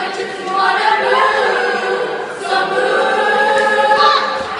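Choir singing held chords in several voice parts, moving to a new chord about every second.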